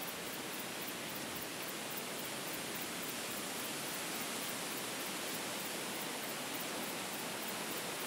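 Steady wind ambience: an even rushing noise with no gusts and no change in level.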